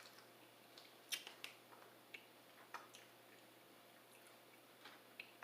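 Faint chewing with a few scattered wet mouth clicks and smacks while eating a burger.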